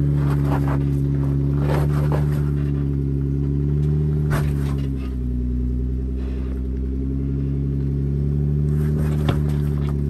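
Jeep Wrangler engine running at low revs under load as it crawls up a rock ledge, the engine note dropping about five seconds in and picking up again a couple of seconds later. A few sharp knocks and scrapes from the tyres and underside on the rock.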